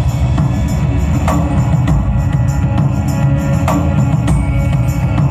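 Loud devotional soundtrack music led by heavy drums, with sharp percussion strikes about once a second over a dense low drumming bed.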